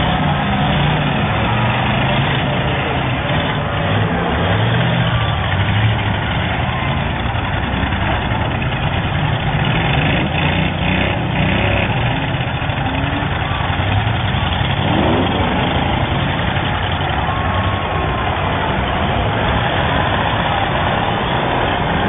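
Demolition derby cars' engines running and revving together, several pitches rising and falling over one another.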